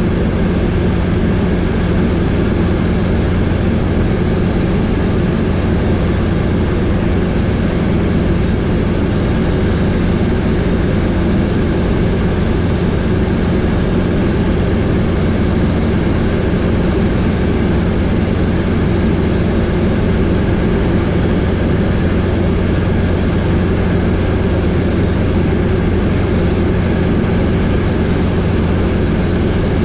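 Helicopter in steady flight: engine and rotor running as a constant low drone with a steady rushing noise, unchanging throughout.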